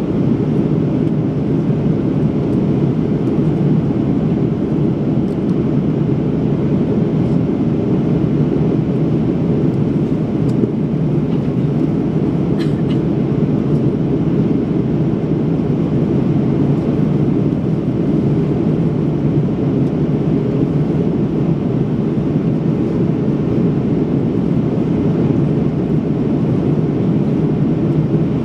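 Airbus A330 airliner cabin noise in flight: the steady low rush of the engines and airflow, heard from inside the cabin by a window.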